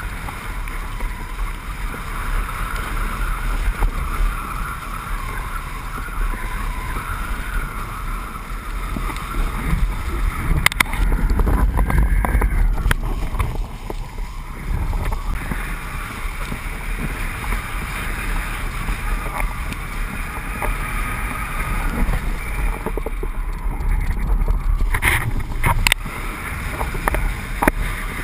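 Steady rush of wind over the camera microphone with a low rumble, mixed with the hiss of a kiteboard carving across choppy water, and a few sharp knocks near the end.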